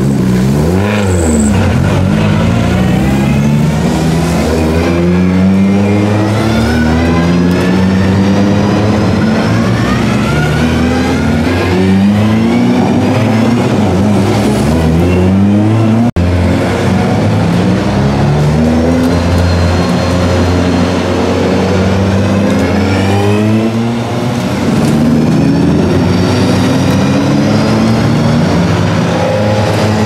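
Mitjet 2.0 race cars' Renault 2.0-litre four-cylinder engines revving and accelerating, several at once, their pitch rising and falling again and again. The sound cuts out abruptly for an instant about halfway through.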